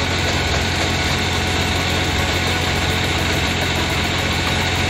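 Tractor diesel engine running steadily at a low, even speed, with no change in pace.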